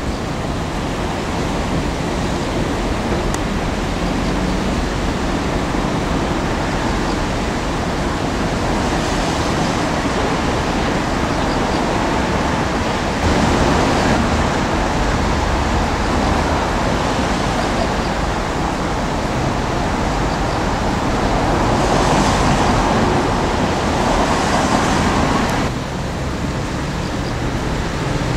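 Hydraulic excavator with a demolition shear at work, its engine and hydraulics running steadily while the shear tears into the stainless-steel body of an E217-series bilevel Green car. The din gets louder about halfway through, swells near the end, and then drops off suddenly.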